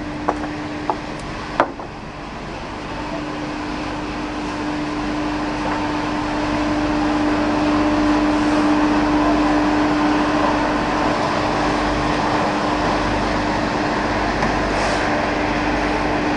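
Straw pellet production line machinery running steadily with a constant hum, a few sharp knocks in the first two seconds, and the noise growing somewhat louder over the next few seconds before holding steady.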